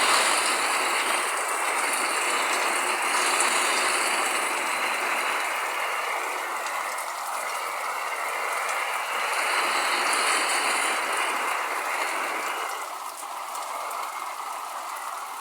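Heavy rain drumming on a roof: a dense, steady patter of countless drops, easing a little about twelve seconds in.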